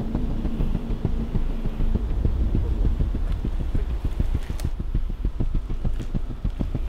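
Film soundtrack: a low, dense throbbing pulse over a deep rumble, with a held tone that fades out about two seconds in.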